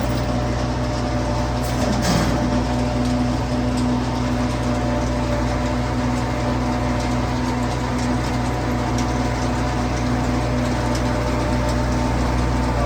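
Farm machinery engine running steadily at a constant speed, a low, even hum with no change in pitch.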